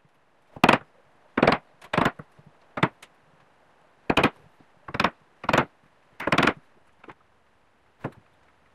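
Wood chisel chopping out a mortise in a wooden strip: about ten sharp wooden knocks at an irregular pace, a few of them drawn out longer.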